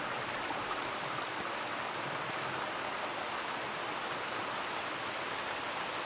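Waterfall rushing steadily, a strong flow of water pouring down rough rock.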